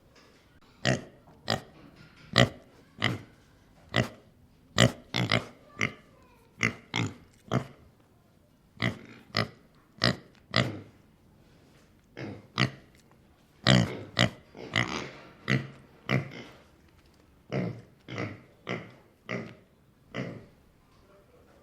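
Pig grunting over and over, a long series of short grunts with brief gaps between them.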